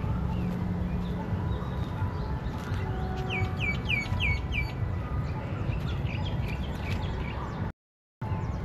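Birds calling and chirping, with a run of about five quick falling chirps a few seconds in, over a steady low rumble. The sound drops out for a moment near the end.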